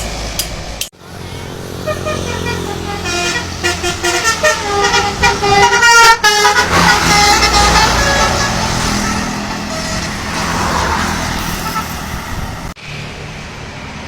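Bus telolet musical horn playing a quick tune of short, stepped notes, broken by an edit cut, followed by a steadier stretch of bus engine and road noise.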